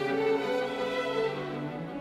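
Background music of long, held bowed-string notes, like a violin and cello arrangement.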